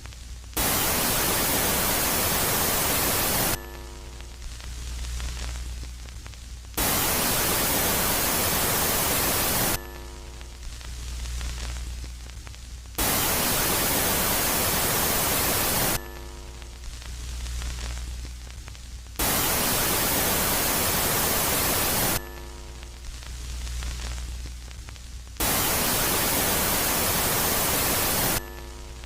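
Space-ambience sound presented as the 'sound' of Jupiter's moon Megaclite, switching between a loud and a quiet phase. Loud bursts of static hiss about three seconds long come five times, about every six seconds, each alternating with a quieter stretch of low hum and faint tones.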